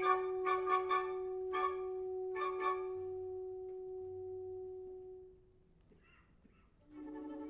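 Symphony orchestra holding one long sustained note, punctuated by several short accented chords over the first three seconds. The note fades away about five seconds in, a moment of near silence follows, and a new sustained chord begins near the end.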